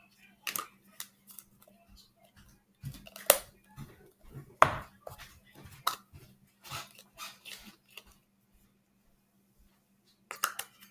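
Small plastic slime tubs being handled and their lids opened: a run of irregular clicks and knocks, two of them sharper than the rest.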